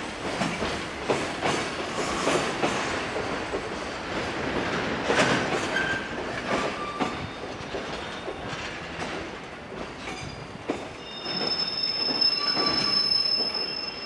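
Freight train container wagons rolling past slowly, their wheels clacking over rail joints. From about ten seconds in, high steady squealing joins in as the train brakes to stop in the station.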